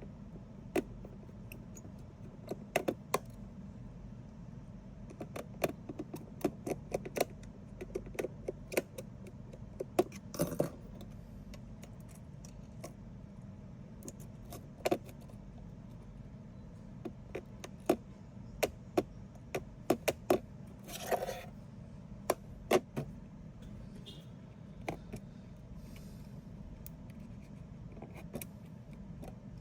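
Irregular sharp clicks and light taps of small hard objects being handled, dozens of them spread unevenly, over a steady low hum.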